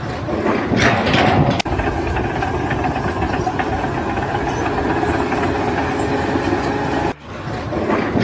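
An engine running steadily, broken off abruptly twice.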